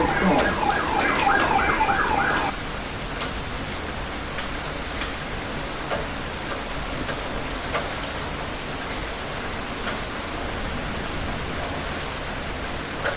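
Heavy rain falling steadily, with a few sharp drop ticks. For the first couple of seconds a siren warbles rapidly up and down, then cuts off abruptly.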